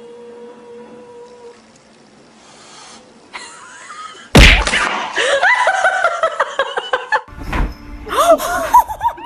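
Quiet at first, then a sudden loud thump about four seconds in, followed by high, wavering vocal cries. Another loud onset a few seconds later brings more cries.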